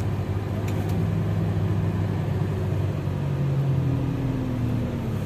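Toyota Hiace van's engine running at low speed while it manoeuvres to park, heard from inside the cabin as a steady low hum whose pitch drops slightly near the end.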